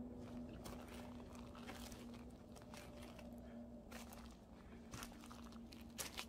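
Faint, irregular footsteps crunching on dry leaves and dead grass on a dirt mountain path, with two sharper, louder crunches near the end.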